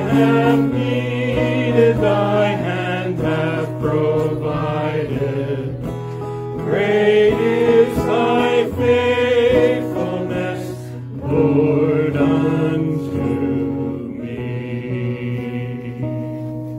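A small group singing a hymn together, a man's voice leading through a microphone and small amplifier, with steady low notes underneath. The singing ends on a long held note near the end.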